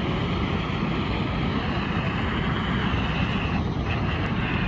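Shortwave radio static from a Grundig Eton G2's speaker tuned to 6.115 MHz: a steady rushing hiss with a faint steady tone in it, the broadcast signal buried in noise.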